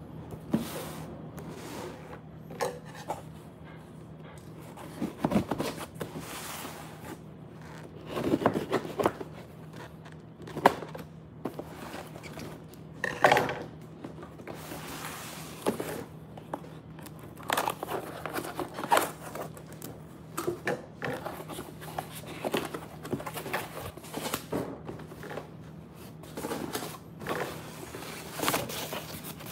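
Cardboard appliance box being opened by hand: tape cut with scissors, then cardboard flaps and packing scraping and rustling, with irregular sharp clicks and knocks over a steady low hum.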